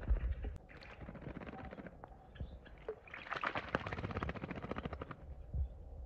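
Crested myna bathing in a bucket of water: bursts of splashing and wing-flapping, a short one about a second in and a longer one from about three to five seconds in.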